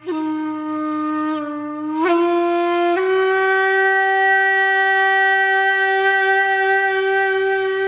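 Background music: one loud sustained wind-instrument-like note that slides up in pitch twice, about 2 and 3 seconds in, then holds a long steady note over a faint low pulse.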